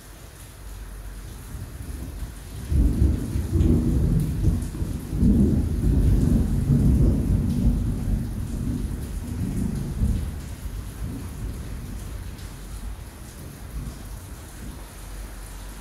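Heavy rain falling steadily, with a long rumble of thunder that builds about three seconds in and dies away over the next several seconds.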